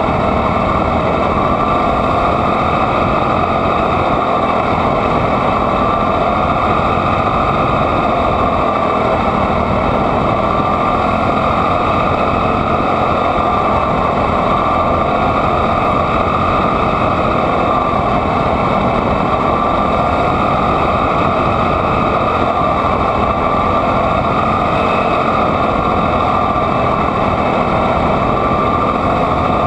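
Quarter midget race car's small single-cylinder Honda engine running hard, heard close up from on board. Its pitch stays nearly steady, rising and dipping slightly as it goes through the turns.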